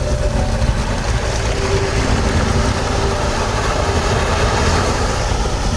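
Steady rushing water noise with a low rumble, recorded underwater in shallow sea water.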